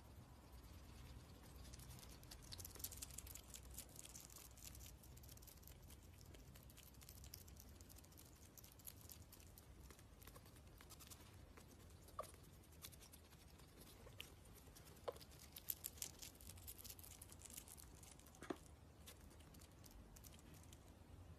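Faint, rapid wet clicking of a pet hedgehog chewing food taken from tweezers, in two spells, with a few short squeaky sounds in between.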